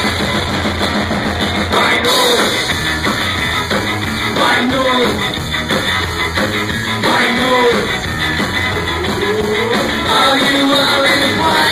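Live ska-punk band playing: a singer's voice over electric guitar, bass and drum kit, steady and loud throughout.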